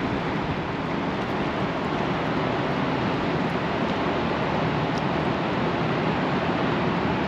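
Fast, high river water rushing past in a steady, even roar with no breaks or changes.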